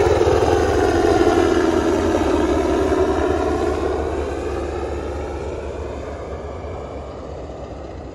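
Helicopter flying low past and away, its rotor beat and engine sound fading steadily over several seconds.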